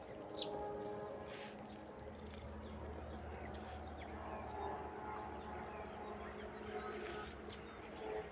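A chorus of insects trilling steadily, a high rapid pulsing, with a few brief bird chirps mixed in.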